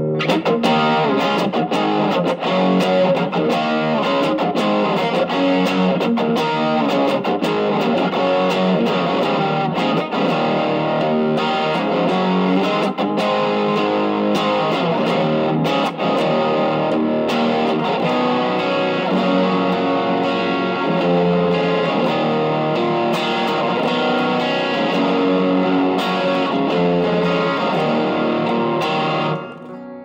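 Electric guitar, a Stratocaster, played through an Ibanez TS808 Tube Screamer with a JRC 4558D op-amp chip at a low gain setting: a lightly overdriven tone, with picked notes and chords played continuously. The playing stops just before the end.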